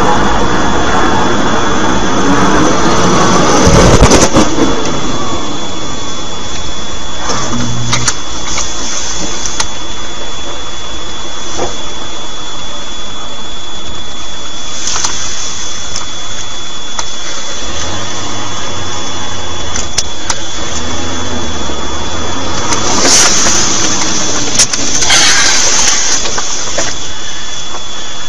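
Steady engine and road noise inside a moving vehicle's cabin. About four seconds in there is a deep boom, the blast of the crashing jet hitting the ground ahead. Scattered knocks and clicks follow, with bursts of hiss near the end.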